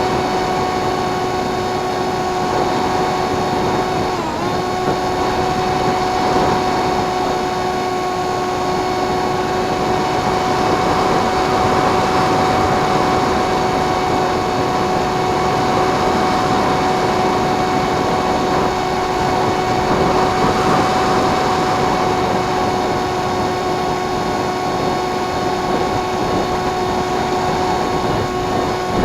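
RC FPV plane's motor and propeller running at a steady pitch, dipping briefly about four seconds in, under a steady rush of wind noise.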